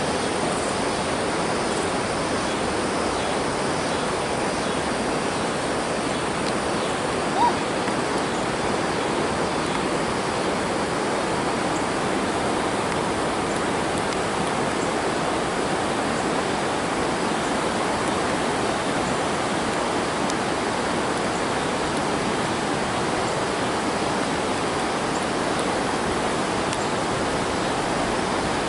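Steady, even rushing noise that does not change, with one very brief rising chirp about seven and a half seconds in.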